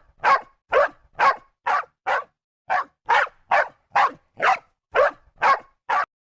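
A dog barking in a steady series of about a dozen short barks, roughly two a second, stopping shortly before the end.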